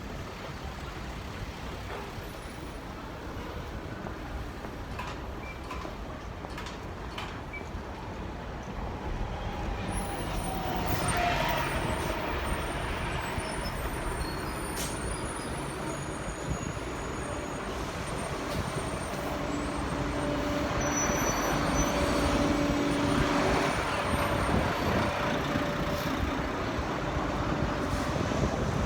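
Road traffic: vehicles passing with a continuous rumble, growing louder over the second half.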